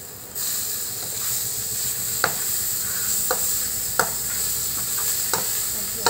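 Chopped tomatoes dropping into hot oil with onions in a steel pan, the sizzle jumping louder about half a second in and then running steadily. A steel ladle stirs and scrapes, with a few sharp clinks against the pan.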